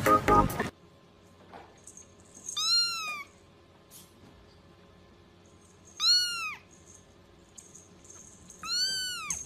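Very young kitten mewing three times, a few seconds apart: thin, high-pitched mews that each rise and then fall in pitch.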